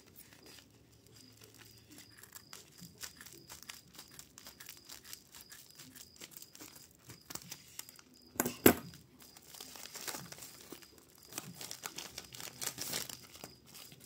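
A plastic bubble mailer being handled and torn open by hand: irregular crinkling and crackling of the plastic film, loudest about eight and a half seconds in, then more rustling near the end as the contents are pulled out.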